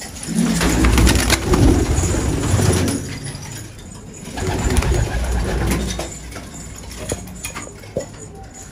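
Domestic pigeons cooing, low rumbling coos in two main spells with quieter cooing between and after, and a few light clicks.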